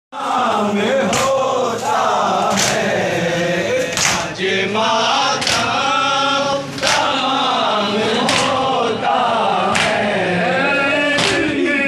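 A crowd of men chanting a Shia noha (lament) together, with a collective matam chest-beat, many hands slapping chests at once, about every one and a half seconds.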